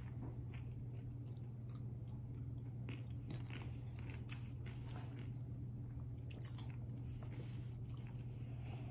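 Crunching and chewing of hand-cooked vegetable crisps (carrot, parsnip and beetroot), in many short, irregular crunches over a steady low hum.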